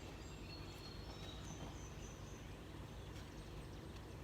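Faint outdoor ambience: a steady low hum with a few brief, thin, high chirps of distant birds and a couple of faint ticks.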